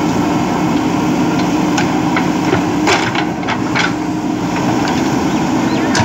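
JCB 3DX backhoe loader's diesel engine running steadily under load while the backhoe digs soil, with a cluster of sharp knocks about two to four seconds in.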